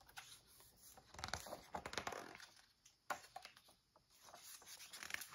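Faint rustling of a picture book's paper pages being turned and smoothed flat by hand, in a few soft scattered rustles.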